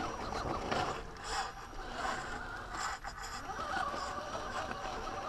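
Scale RC rock crawler climbing rock: the motor and gears whine, with short scrapes and clatter of the tires and chassis on the rock.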